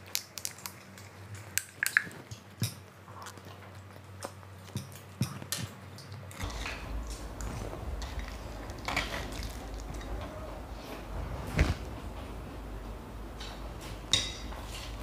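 Close-up eating sounds: a fork clinking and scraping on a steel plate of Maggi noodles, among chewing and mouth sounds, with a few sharper clicks standing out. A low steady hum comes in about six seconds in.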